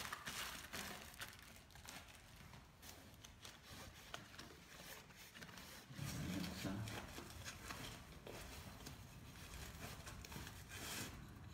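Plastic bubble wrap crinkling and rustling as it is handled and peeled off a camera lens, with irregular small crackles.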